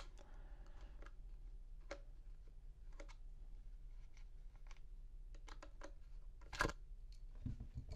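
Faint, scattered clicks of a Phillips screwdriver turning a screw out of a massage gun's plastic housing, with one sharper click about six and a half seconds in, over a low steady room hum.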